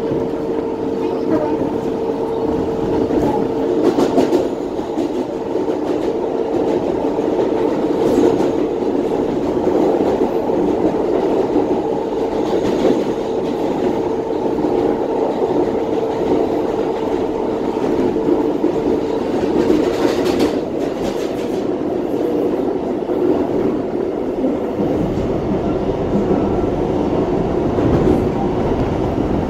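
Inside a moving New York City Subway R142A car: the steady running noise of the train, with a few sharp clacks from the wheels. A steady whine runs until about two-thirds of the way through and then stops, and a deeper rumble comes up near the end.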